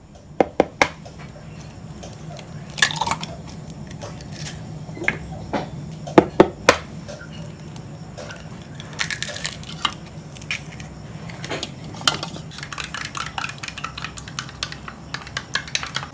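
Wooden spoon beating eggs in a plastic measuring jug: a few sharp knocks at first, then fast, dense clicking and tapping of the spoon against the jug from about halfway through.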